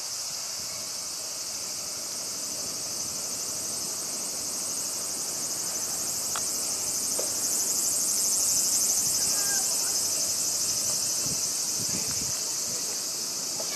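Steady, high-pitched insect chorus that swells a little about two-thirds of the way through.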